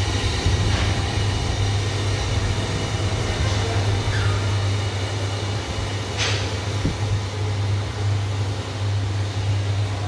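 Steady low mechanical hum of running workshop machinery, with a short sharp click about six seconds in.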